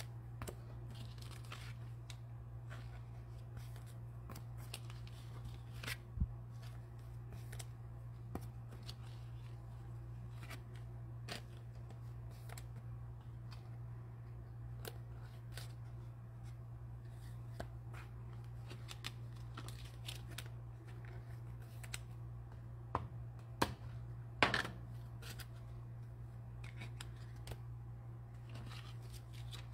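Trading cards being handled and sorted: faint scattered rustles and light clicks of card stock, with a few sharper clicks about six seconds in and around twenty-three to twenty-five seconds in, over a steady low hum.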